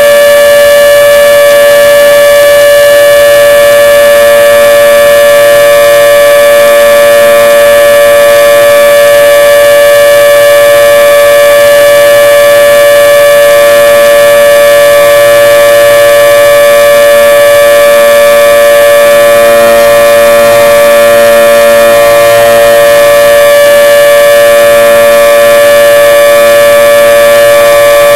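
Federal 2T22 dual-tone electromechanical outdoor warning siren sounding a loud, steady chord-like tone for its monthly test, with no rise or fall in pitch.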